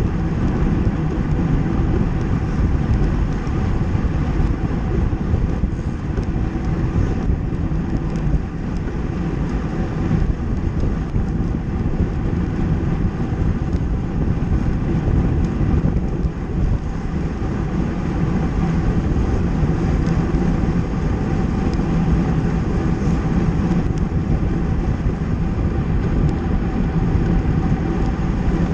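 Road bike riding at speed on asphalt: steady wind rushing over the microphone of a handlebar-mounted camera, mixed with tyre noise on the road.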